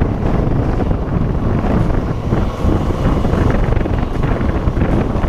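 Steady wind rush on the microphone of a camera mounted on a Kawasaki Versys 650 motorcycle riding along, with the bike's running and road noise underneath.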